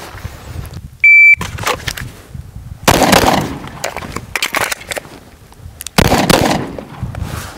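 Electronic shot timer's start beep, then a pistol shot about two seconds later, a magazine change with clicks and rattles, and a second pistol shot about six seconds in: a timed draw, shot, reload, and follow-up shot drill.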